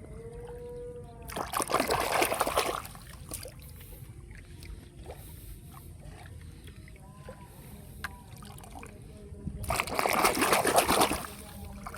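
Water splashing in two loud bursts of about a second and a half each, a few seconds apart.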